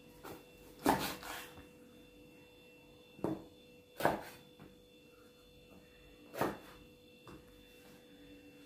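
A few separate knocks and clatters of kitchen things being handled and set down, about five in all a second or two apart, over a faint steady hum.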